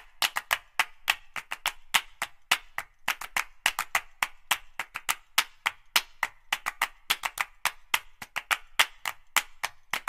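Background music made of quick, dry percussion clicks, about five or six a second in an uneven pattern.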